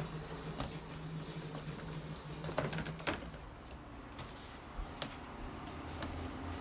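Scattered plastic clicks and knocks as a portable air conditioner's flexible exhaust hose is fitted and locked into place.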